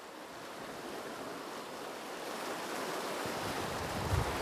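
Fast river current rushing over a rocky riffle, a steady hiss that slowly grows louder. Low rumbling joins in from about three seconds in.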